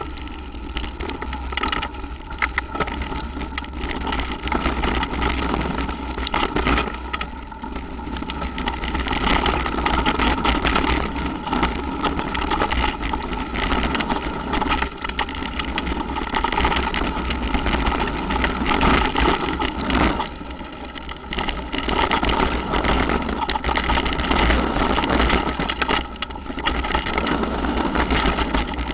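Mountain bike riding fast down a dirt and gravel trail: continuous tyre noise and rattling of the bike over bumps, with heavy wind buffeting on the action camera's microphone.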